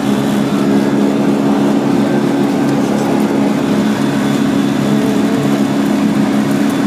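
ATV engine running at a steady speed while riding, its drone even throughout.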